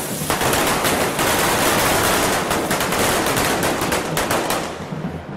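Devils' firework spark fountains on fire forks going off together: a dense, rapid crackle of many small bangs, thinning out and fading about four and a half seconds in.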